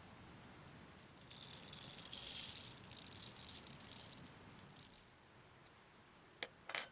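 Whole coffee beans poured from a small metal cup into the steel hopper of a hand coffee grinder: a rattling patter of beans on metal for about four seconds, tailing off. Two short clicks follow near the end.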